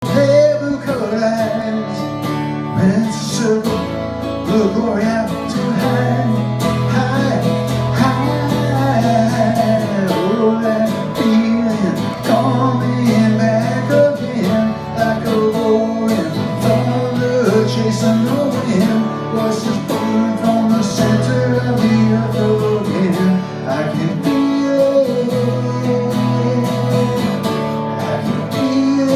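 Guitar-led music with a bass line holding long notes that change every couple of seconds, and a sung melody over it.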